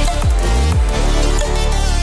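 Electronic background music with a deep bass line and repeated drum hits that drop in pitch.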